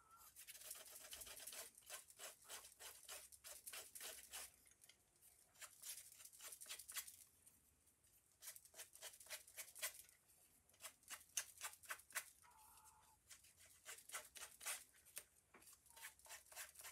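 Faint, quick scraping strokes of a hand tool roughening the edge of paper card to distress it, in short runs with brief pauses between.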